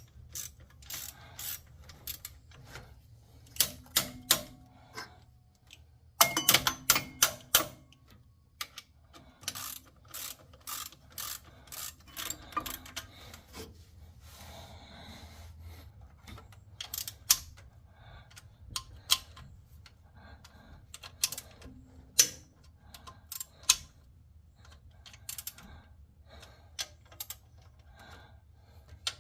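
Ratchet wrench clicking in short bursts, with a few metal clinks, as the water pump bolts are tightened one after another in sequence to seat the pump.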